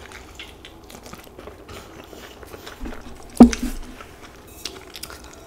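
Close-miked chewing of a mouthful of burrito, with many small wet mouth clicks. About three and a half seconds in there is a single loud thump as the burrito is put down on the wooden board.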